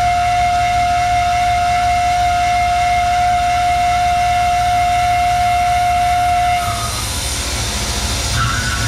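Tormach 1100M CNC mill cutting aluminium, the machine running loudly with a single steady high tone ringing from the cut. The tone stops about two-thirds of the way through and the sound drops a little; near the end a second, higher tone starts.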